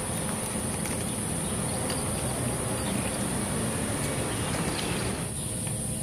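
Outdoor background of insects: a steady high-pitched drone over a steady rushing noise, with no clear single event.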